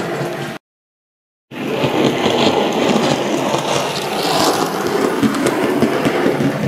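OO-gauge model steam tank locomotive, a Bachmann Fowler 3F Jinty, running on the track with a train of wagons: steady motor and wheel noise. The sound cuts out about half a second in and comes back a second later.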